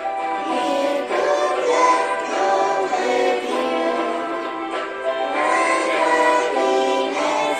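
A group of voices singing a song together with music, held notes moving from one pitch to the next without a break.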